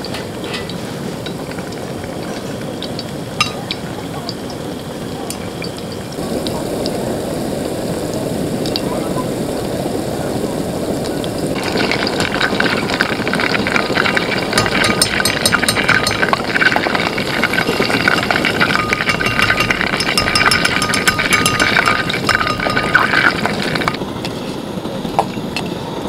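Battered pieces deep-frying in hot oil in a cast-iron pot: a steady sizzle that grows louder about six seconds in, then crackles much more densely from about midway until near the end. There are a couple of sharp metal clicks from tongs.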